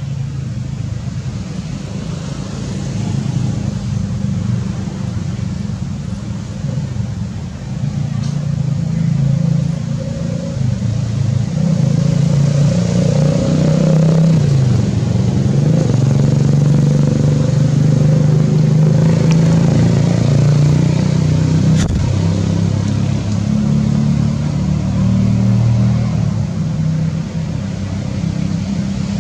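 An engine running with a steady low drone that shifts slightly in pitch, growing louder about eight to twelve seconds in.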